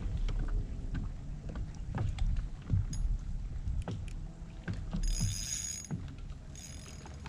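A spinning reel being worked during a fight with a big flathead catfish, over water and wind rumble, with scattered knocks and clicks from the kayak and gear. There are two short high-pitched buzzes, about five seconds in and again near the end.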